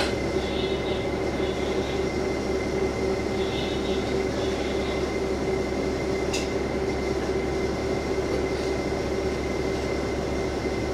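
Steady drone inside a KiHa 47 diesel railcar, its diesel engine running with a constant hum and low rumble.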